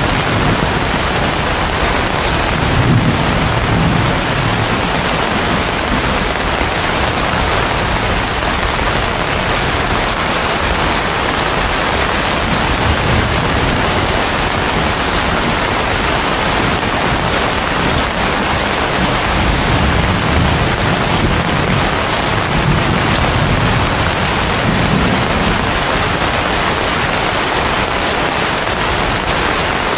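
Heavy rain pouring steadily. Low rumbles swell a few seconds in and again about two-thirds of the way through.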